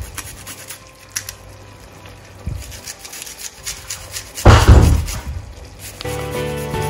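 A garlic clove being grated on a small handheld metal grater: a run of quick, faint scraping strokes. About four and a half seconds in comes one loud thump, then background music begins near the end.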